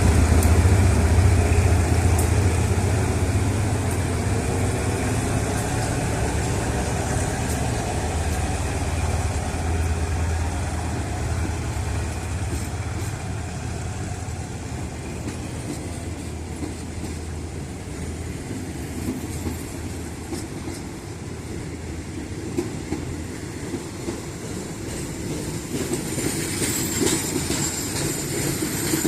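GEA-class diesel locomotive running, its low engine drone fading away over the first dozen seconds, followed by the steady rumble of train cars rolling on the rails, which grows a little louder near the end.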